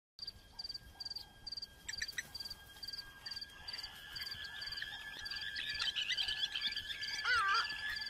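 Natural grassland ambience: a high chirp repeating about twice a second over a steady high-pitched drone, with birds calling more and more from about halfway. A lower wavering call comes near the end.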